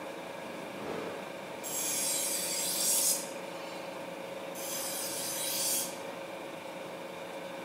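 Water-cooled rotating grinding wheel running with a steady hum, and twice a knife blade ground against it, each a hissing scrape of about a second and a half.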